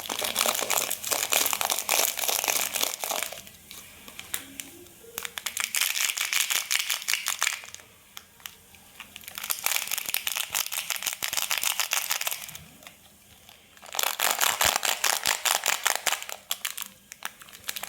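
Homemade foam-sheet-and-tape fidget toy crinkling and crackling as it is handled, a dense run of rapid clicks like a pop tube. It comes in four bouts of two to three seconds each, with short pauses between.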